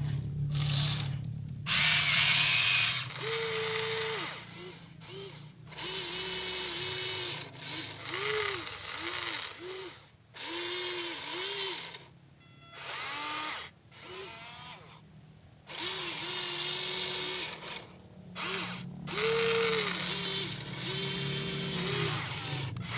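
Huina 1593 RC excavator's small electric gear motors whining in short, repeated bursts as its functions are worked by remote. The pitch rises as each motor starts and drops as it stops, with brief pauses between moves.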